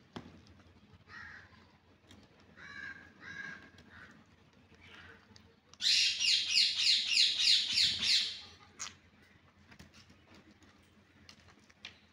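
A green parrot giving a rapid series of about ten harsh screeches over some two and a half seconds midway, after a few fainter calls.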